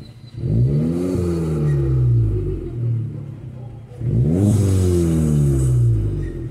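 Volkswagen Polo engine exhaust with the muffler removed (straight pipe), blipped from idle twice: just after the start and again about four seconds in. Each time the pitch rises quickly and then falls back more slowly to idle.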